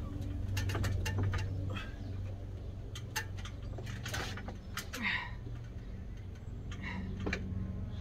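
Scattered light knocks, taps and short scrapes of a cement board being handled and fitted by hand against a timber frame, over a steady low hum.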